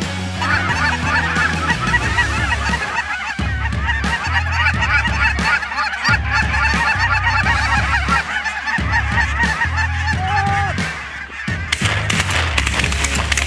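A large flock of cackling geese in flight calling at once, a dense chorus of high-pitched honks that thins out about three-quarters of the way through. Background music runs underneath and comes up near the end.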